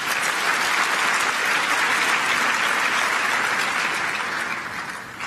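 Large audience applauding, dying away near the end.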